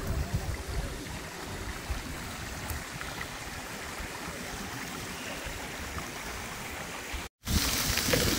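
Water running down a stepped cascade channel, a steady trickling rush, with some low wind rumble on the microphone at first. After a cut near the end, the louder hissing splash of ground-level fountain jets.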